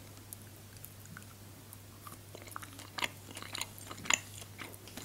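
Soft biting and chewing of a chocolate-covered marzipan stick: quiet at first, then small sticky clicks and light crunches from about two seconds in, over a faint low steady hum.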